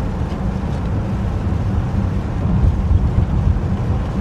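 Steady low rumble inside a car cabin at highway speed in heavy rain: tyre noise on the wet road mixed with wind and rain on the body.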